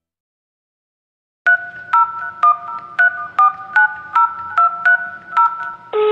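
Telephone keypad dialing: about a dozen quick touch-tone beeps, each a two-note tone with a click, after about a second and a half of silence. Near the end a steady line tone begins.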